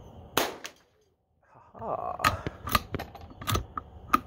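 A single sharp crack of a .22 rifle shot from a Savage Mark II FV-SR, followed after a short gap by a series of clicks and knocks with rustling between them.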